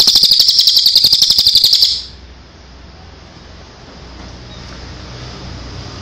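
Crested jay (cililin) giving its loud 'tembakan' call, a very fast rattle of evenly spaced notes, about eighteen a second, that stops about two seconds in.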